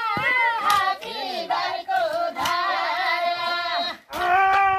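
High-pitched voices singing a Nepali work song sung while weeding maize, with long held notes that bend in pitch. The singing breaks off briefly about four seconds in, then picks up again.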